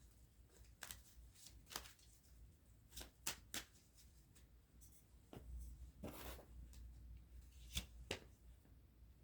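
Tarot cards being shuffled by hand: quiet, irregular card slaps and clicks, with a longer riffle about six seconds in.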